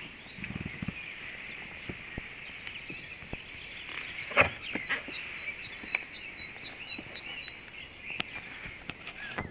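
Outdoor background with a steady high-pitched drone, over which a bird calls in a run of short, evenly spaced chirps, about two a second, midway through. A few sharp clicks.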